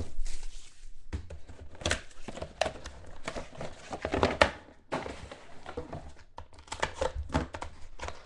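Hands opening a cardboard trading-card box and pulling out the wrapped card packs: irregular crinkling, rustling and scraping, with a brief lull about five seconds in.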